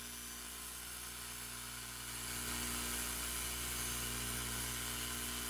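Brushless AC blower motor, salvaged from a pool heater and used as a rotary spark gap motor, running steadily at low voltage with a mains hum and a hiss. It gets a little louder about two seconds in.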